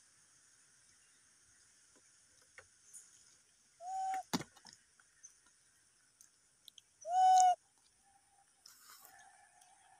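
Baby macaque giving two short, clear coo calls, about four seconds in and again about seven seconds in, each held level for about half a second. A sharp click comes just after the first call.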